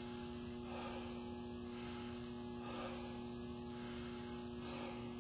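A weightlifter's heavy breathing, a deep breath roughly every two seconds, as he stands at the top of a high-rep barbell back squat catching his breath between reps under the load. A steady electrical hum runs underneath.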